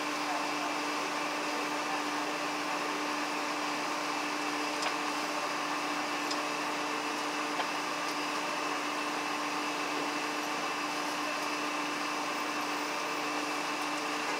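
A steady mechanical hum with a constant pitch, with two faint ticks about five and seven and a half seconds in.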